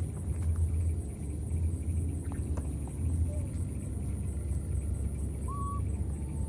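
Steady low outdoor rumble with a faint continuous high whine above it, and one short high squeak about five and a half seconds in.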